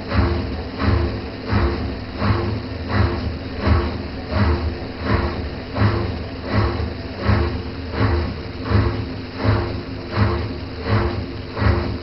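Washing machine running: a regular surge about one and a half times a second over a steady hum.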